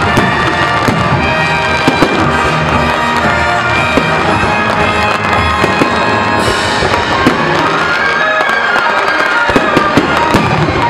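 Fireworks bursting in quick, irregular bangs and crackles over loud music from a sound system, with a high hiss setting in about halfway through.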